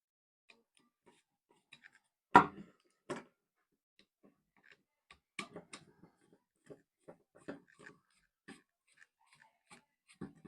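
Clicks and knocks of hand wiring work on a bell switch: one sharp knock about two and a half seconds in, a second softer one just after, then scattered light clicks.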